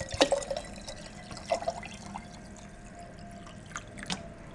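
Water poured in a thin stream into a glass mason jar, filling it up, with a few light clicks along the way.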